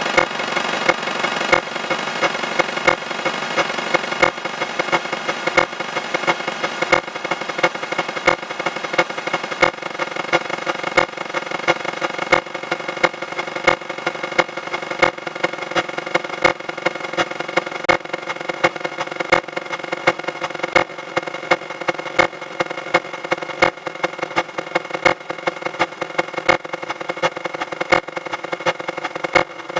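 Emergency alert (EAS) alarm sound digitally sped up many times over, turned into a dense steady buzzing drone of tones with a sharp click repeating roughly every three-quarters of a second.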